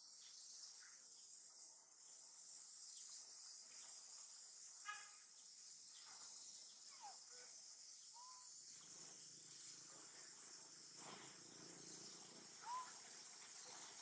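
Faint, steady, high-pitched insect chorus, with a few brief chirps breaking through now and then.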